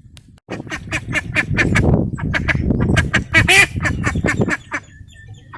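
A flock of ducks or geese calling, a dense clamour of rapid quacks and honks overlapping. It starts suddenly about half a second in and thins out near the end.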